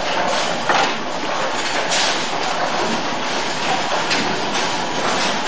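Bowling alley din: balls rolling down the lanes and pins clattering, with a couple of sharper crashes about a second and two seconds in.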